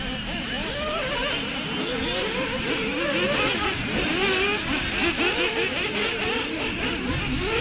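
Several 1/8-scale off-road RC buggies racing, their motors whining and overlapping, the pitch rising and falling quickly as they accelerate and slow through the track.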